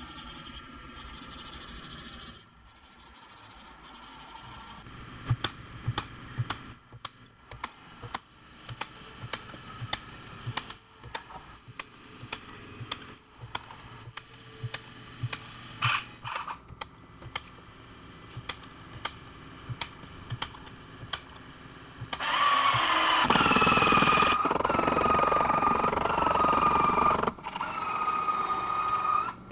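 Sharp taps or clicks on car-body sheet metal, about one or two a second, as a crease in the panel is worked. Then, about three quarters of the way in, a power tool starts and runs loudly with a steady high whine that sags a few times.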